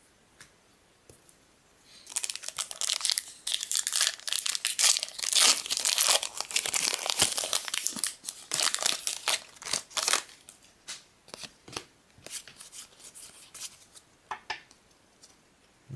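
Pokémon booster pack's foil wrapper being torn open and crinkled in the hands. A dense run of crackling starts about two seconds in and lasts some eight seconds, then thins to scattered rustles and clicks.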